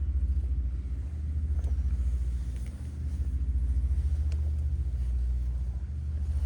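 Orange-and-white cat purring close to the microphone: a steady low rumble with a fine rapid pulse that dips briefly every second or two as the cat breathes.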